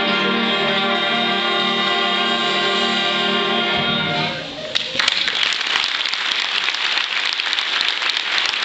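A student wind band with flutes holds a final chord that dies away about four seconds in, followed by audience applause.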